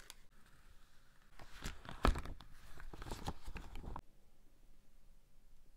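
Stiff clear plastic clamshell packaging being handled: crinkling and clicking, with one sharp snap about two seconds in, stopping suddenly about four seconds in.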